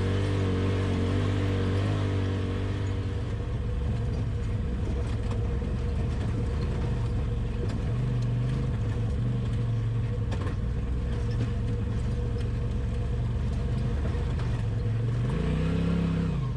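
Polaris RZR Pro XP side-by-side engine running steadily at low, even revs while driving, with a short rise and fall in revs near the end.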